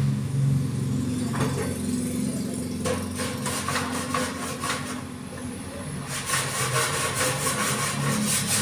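Hand metal-finishing on a dented body panel: runs of quick, regular strokes of a hand tool on the sheet metal, a few seconds in and again near the end, over a steady low engine-like hum.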